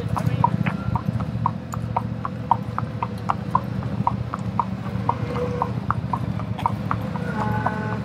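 A shod horse's hooves clip-clopping on asphalt at a walk, heard up close from the saddle, about three hoof strikes a second over a steady low rumble.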